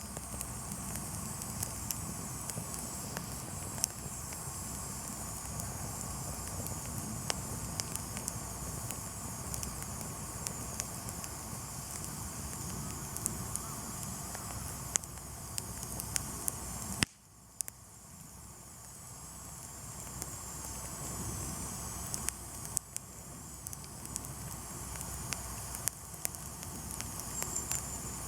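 Wood campfire crackling: scattered sharp pops and snaps over a steady rush of burning. About 17 seconds in the sound drops away suddenly, then slowly swells back up.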